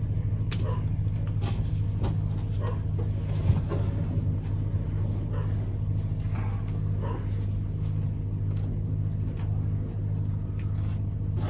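A steady low mechanical hum that holds an even pitch and level throughout. Over it come faint scattered taps and crinkles as a window film is pressed and smoothed onto the glass.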